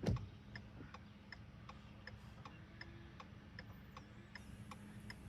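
A car's indicator flasher ticking steadily, about two and a half clicks a second, over a steady low hum; one louder thump right at the start.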